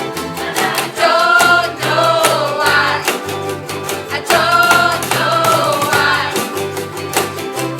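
Music: voices singing a rock song over a band, with a stepping bass line and a steady drum beat.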